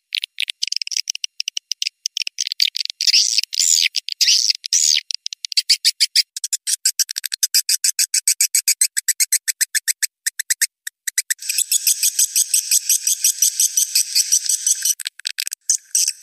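Swiftlet calling track (suara panggil walet), a recording of swiftlet clicks and twitters played to lure swiftlets into a swiftlet house. Fast trains of high clicks and short chirps, with nothing in the low range. About eleven seconds in it becomes a denser, buzzing chatter.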